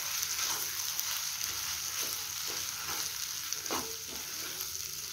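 Onion-tomato masala sizzling steadily in a non-stick kadai as mashed boiled potato is stirred into it with a slotted spatula, the spatula scraping the pan now and then.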